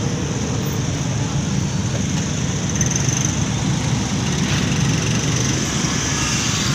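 Slow, congested street traffic: motorcycle and car engines running as they creep past close by, a steady rumbling din.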